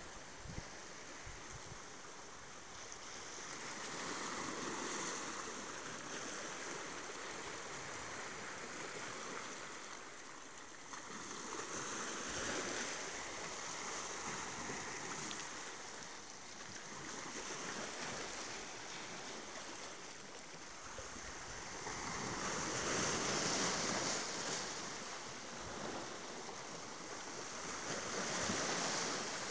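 Small sea waves washing in over shoreline rocks, the surf swelling and falling back in slow surges every several seconds.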